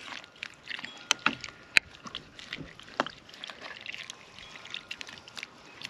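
A plastic spoon stirring thick, creamy soup in a slow cooker, the soup sloshing softly, with several sharp clicks as the spoon knocks against the pot.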